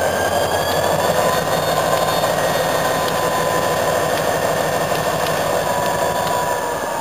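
Pan Am Railways diesel-electric locomotive engine running steadily, with a high whine above it that rises slightly in pitch about a second in.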